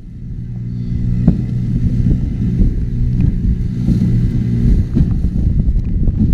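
Fishing boat's motor running steadily, growing louder over the first second or so, with wind rumbling on the microphone and a few sharp knocks.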